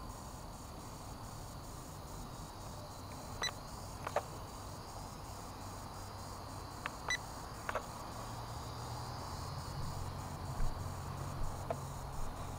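Faint steady background hum with a few short, sharp beeps a few seconds apart, and a low hum that grows stronger in the second half.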